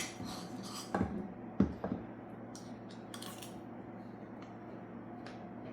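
Kitchen clatter of dishes and utensils: a sharp clink at the start, then a few knocks about one to two seconds in, and light scattered clicks afterwards over a steady low hum.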